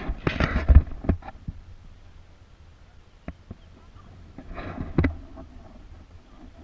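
Kayak paddle strokes splashing in calm lake water, with a few sharp knocks: a burst in the first second and another about five seconds in.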